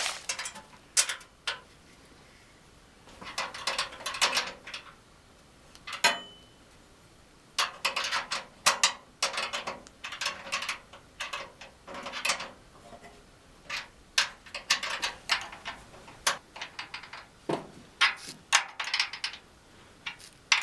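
Nuts being tightened onto threaded studs with a small metal wrench: bursts of metallic clicking and scraping as the wrench is turned and reset, with short pauses between.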